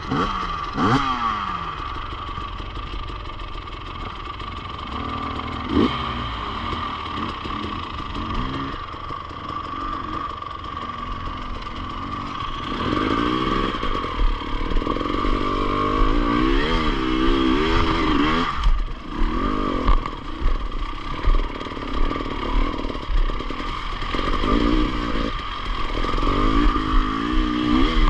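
Enduro motorcycle engine being ridden off-road. The revs rise and fall again and again, with quick swings through the second half.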